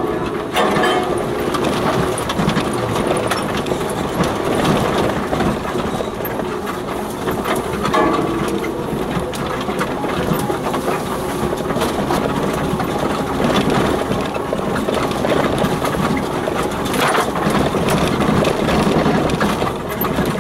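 4x4 off-roader heard from inside the cab, driving down a rutted grass lane: engine running under a steady clatter of body and suspension rattles, with frequent knocks as the wheels go over the ruts.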